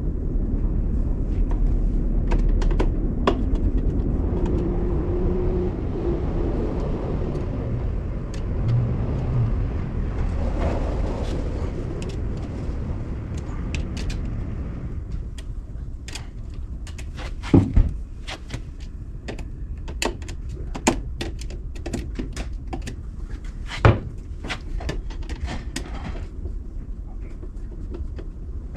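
A low engine-like rumble that fades out about halfway through, followed by a scattering of sharp knocks and clanks, the loudest a pair near the middle and one more a few seconds later.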